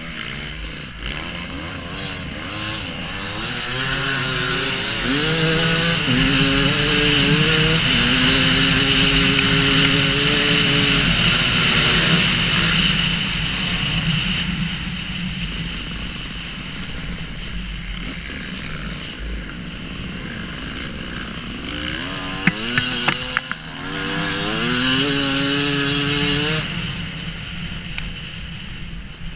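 Two-stroke Husqvarna WR250 enduro motorcycle engine riding off-road: it revs up with the pitch climbing in steps, holds at speed, eases off, then accelerates again with a few sharp clicks about three-quarters of the way through.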